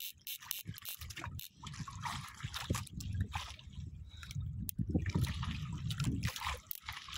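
Water sloshing and lapping against the hull of a small outrigger boat, uneven and choppy.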